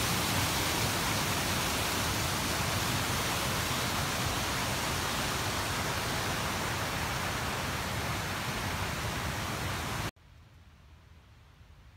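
Fast-flowing creek rushing over rocks, a steady, even noise that cuts off suddenly about ten seconds in, leaving only a faint quiet background.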